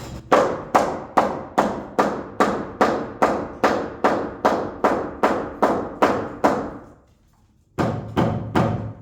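Hammer blows on wood, about two and a half a second in a steady run of some fifteen strikes, then a short pause and three more. The sound fits a tight-fitting floor joist being knocked into place.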